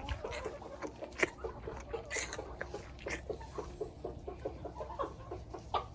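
Alpaca chewing a mouthful of hay close up: irregular crunching clicks, several a second, over a low steady rumble.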